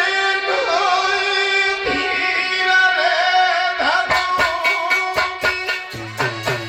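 Music from a north Indian folk dola song: a wavering melody over a steady drone, with drum strokes coming in about four seconds in and a steady, even beat with bass starting near the end.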